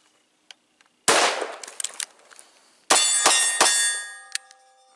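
One gunshot from the bullpup rifle about a second in, then three quick pistol shots from a .40 H&K USP about two seconds later, followed by a metallic ringing that fades.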